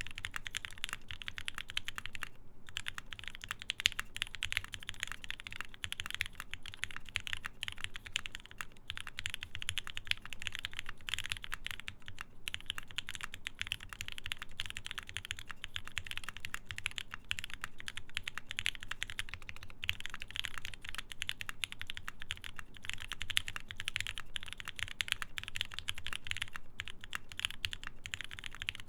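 Fast, continuous typing on a Geonworks F1-8X mechanical keyboard with a full aluminium plate, lubed Gateron Ink switches and screw-in stabilizers: a dense stream of keystroke clicks with a few brief pauses.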